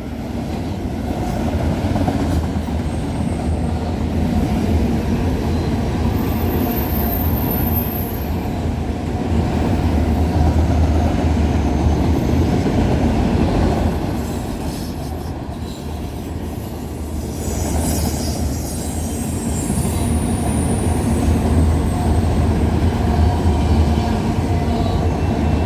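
Freight cars of a CPKC manifest train rolling past close by: a steady rumble of steel wheels on rail with clickety-clack over the joints. Brief high-pitched wheel squeals come about six seconds in and again around eighteen to twenty seconds.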